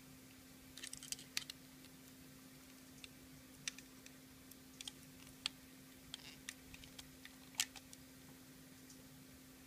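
Penknife blade prying at the retaining C-clip on the back of a lock cylinder: scattered small metal clicks and scrapes, a quick cluster about a second in and the sharpest click near the end.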